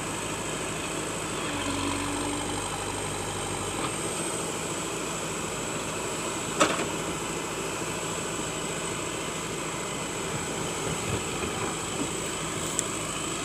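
Terex 740 backhoe loader's diesel engine idling steadily, with one sharp knock about six and a half seconds in.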